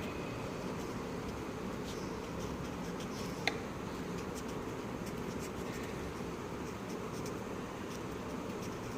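Sketch pen scratching lightly on paper as the drawing is coloured in, over a steady background hiss. A brief high squeak about three and a half seconds in.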